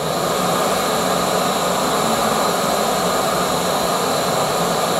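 Campingmoon XD-2F canister gas stove burning at full flame: a steady rushing hiss from the burner.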